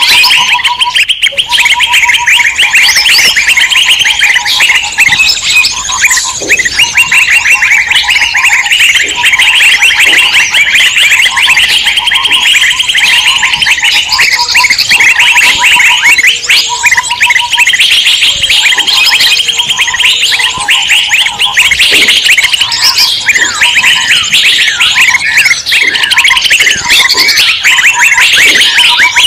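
Loud, dense chorus of many small songbirds chattering and chirping at once, a mixed-species bird-lure recording. Under it, a lower pulsing note repeats in short runs every second or two.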